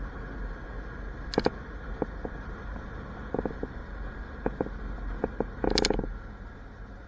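Motorcycle riding along a street: a steady low rumble of engine and wind, broken by several sharp clicks or rattles and a louder short clatter near the end.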